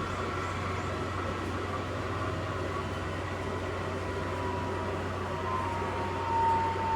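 Extra-large coin-laundry washing machine running late in its cycle: a steady motor hum, with a faint whine that drifts slightly lower in pitch in the second half.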